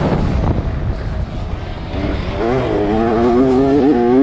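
65cc two-stroke motocross bike engine heard from onboard: the revs drop about a second in, then climb and waver up and down as the rider works the throttle, with wind and ground rumble underneath.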